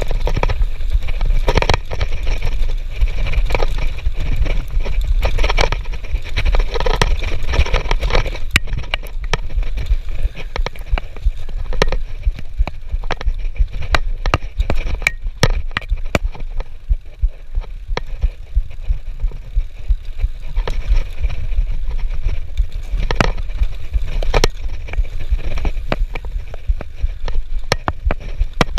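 Mountain bike rolling down a rough dirt trail: a steady low rumble of wind on the microphone and trail vibration, broken by many sharp clacks and rattles as the bike jolts over bumps.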